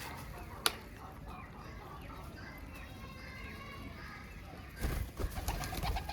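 Domestic birds in a yard calling softly, with a sharp click about half a second in and a louder burst of wing flapping and rustling near the end.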